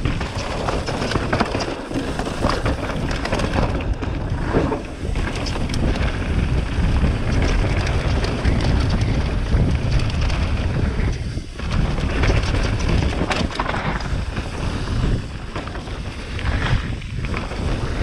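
Wind buffeting a helmet-mounted GoPro's microphone on a fast mountain-bike descent, over a steady low rumble of tyres and bike on rough, rocky trail ground.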